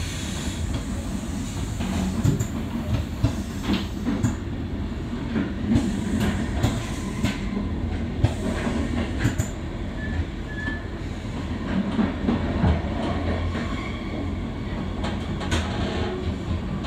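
Passenger train running along the track, heard from inside the carriage: a steady low rumble with the wheels clicking and knocking irregularly over the rails.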